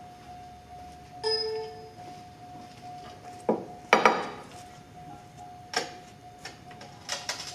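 A short electronic beep about a second in, over a faint steady tone, and several sharp metallic clanks, the loudest about four seconds in.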